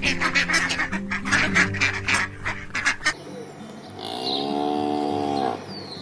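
A duck quacking in a quick run of short calls, about four or five a second, for the first three seconds. About a second later a cow gives one long, low moo. Background music plays underneath.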